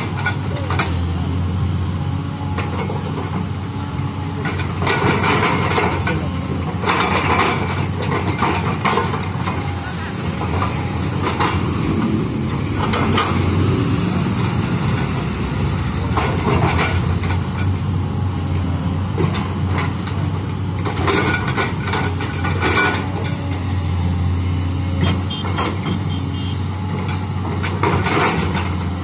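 LiuGong tracked excavator's diesel engine running steadily with a low hum while it digs, with intermittent louder noises over it. A truck passes near the middle.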